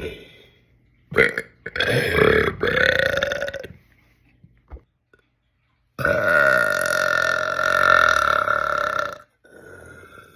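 A man burping: a short burp about a second in, a longer one of about two seconds, then after a pause a long, steady burp of about three seconds.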